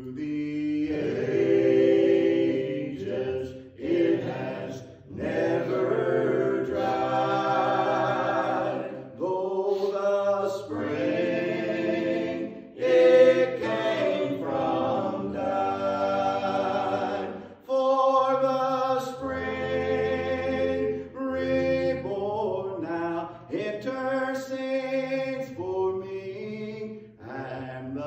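A gospel quartet of men's and a woman's voices singing a hymn in harmony, with held notes and short breaks between phrases.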